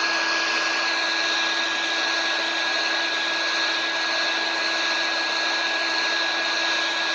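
Electric heat gun with a conical nozzle running steadily, a rush of blown air with a constant low hum and a thin high whine, as it scorches Torch Paste on a wooden board.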